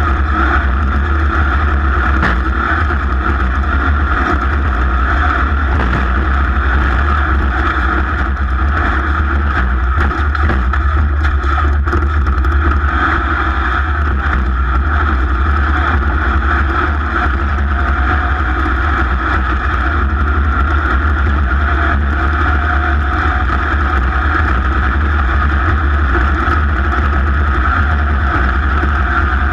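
A racing vehicle's engine running steadily under racing load: a continuous, loud drone that holds the same pitch, with no clear revving up or down.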